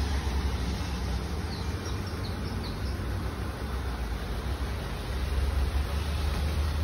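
Outdoor traffic ambience: a steady low rumble of road traffic, with a few faint short bird chirps between about one and a half and three seconds in.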